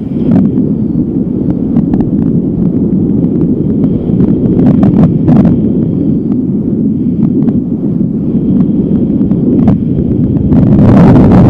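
Strong wind buffeting the microphone: a loud, steady low rumble with a few brief flaps or rustles about five seconds in, growing louder and harsher near the end.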